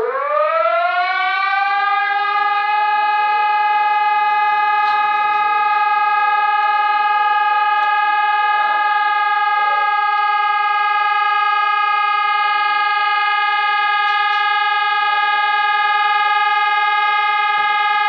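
Warning siren winding up from a low pitch over the first couple of seconds, then holding one steady tone, an attention alarm of the civil-defence kind.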